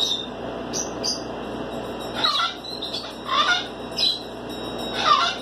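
Young raccoon's high chirping cries, each falling steeply in pitch, a few short chirps in the first second, then longer cries about once a second.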